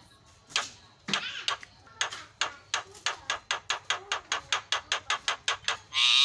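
Javan myna calling: two short harsh notes, then a fast rattle of sharp clicking notes, about five a second, ending in a loud harsh squawk.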